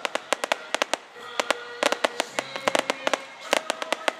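Fireworks finale: a rapid, dense string of sharp crackling bangs, many per second, thinning briefly about a second in before picking up again, with faint music underneath.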